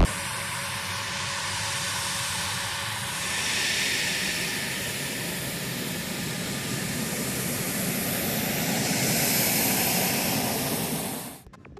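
Military jet engine running at low taxi power: a steady rushing hiss with a thin high whine, swelling about four seconds in and again near the end before dropping away.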